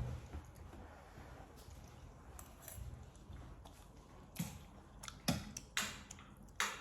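A few short, sharp clicks and taps, about a second apart in the second half, over quiet room tone.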